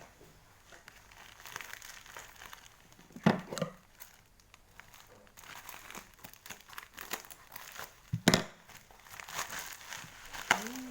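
Plastic parcel packaging crinkling and rustling as it is handled, with two louder knocks, about three seconds in and about eight seconds in.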